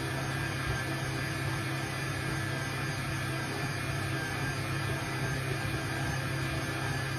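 Stand mixer's motor running at a steady hum as its dough hook kneads wet focaccia dough in a steel bowl.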